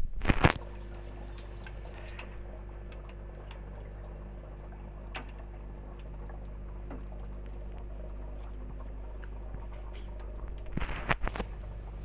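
Aquarium air pump (aerator) running with a steady hum, feeding air to an artemia hatching bottle. Sharp clicks and knocks of plastic air tubing and bottle being handled come just after the start and again about a second before the end.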